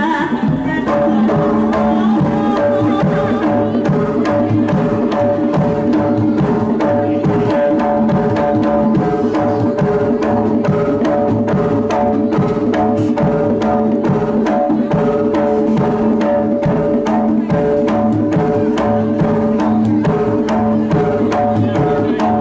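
Jaranan gamelan accompaniment: fast, dense hand-drum strokes over several held pitched tones, steady throughout.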